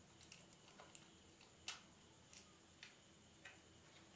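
Faint, irregular small clicks and taps of plastic and a circuit board being handled as a Sony SRS-XB10 speaker's main board is worked out of its plastic housing, the sharpest click about a second and a half in.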